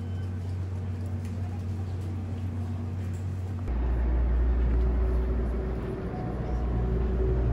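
Steady low hum of shop ambience, then, about three and a half seconds in, an abrupt change to a louder, deeper steady drone inside the cabin of a Seibu Laview express train standing at a platform.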